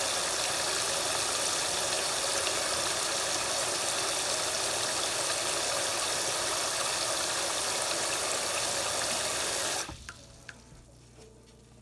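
Faucet spray pouring into a basin already full of water: a steady rushing splash that cuts off suddenly about ten seconds in, leaving only faint small clicks.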